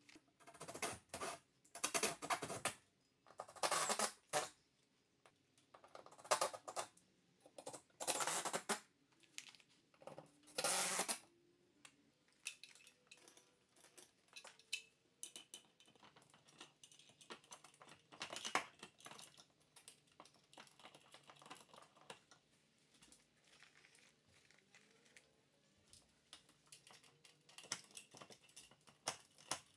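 Handling noises as an electric chain hoist is fitted into a steel wall-mounted bracket: a run of loud clattering and rattling in the first dozen seconds, then sparse small metal clicks and knocks.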